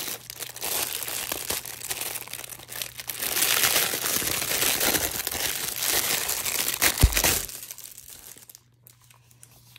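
Packaging crinkling and rustling as items are handled and unwrapped, with one dull thump about seven seconds in; the rustling stops shortly after.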